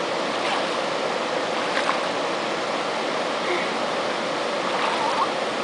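Waterfall rushing steadily: a continuous even hiss of falling water.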